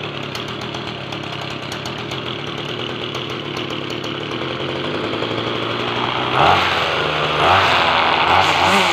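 Petrol whipper snipper (string trimmer) engine idling steadily as it warms up after starting, then revved up a few times over the last few seconds.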